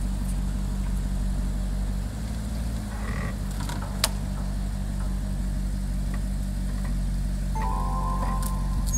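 Vehicle engine idling steadily, a low even drone. A brief higher steady tone sounds about eight seconds in.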